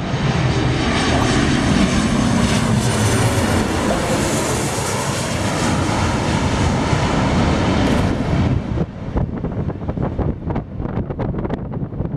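Boeing 737-800's CFM56 jet engines running loud and steady, fading about eight and a half seconds in, after which wind buffets the microphone.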